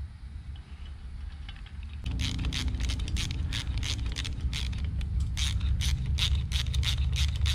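Hand ratchet on a T-handle clicking steadily, about three or four clicks a second, as the rocker box bolts of a Harley Twin Cam engine are run down by hand. A low steady hum starts underneath about two seconds in.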